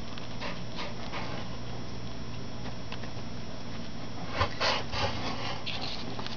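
Dry rustling and scratching in brooder litter and hay as a coturnix quail chick moves about, with a short run of louder scratches about four and a half seconds in, over a steady low hum.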